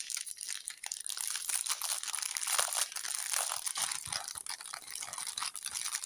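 Clear plastic bags of diamond-painting drills being handled and crinkled: a continuous run of small crackles and rustles.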